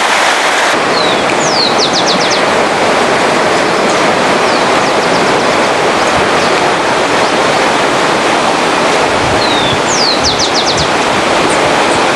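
Steady rushing of stream water flowing under a bridge. Over it a bird sings twice, about a second and about ten seconds in, each time a slurred whistle followed by a quick run of about five high notes, with a fainter phrase in between.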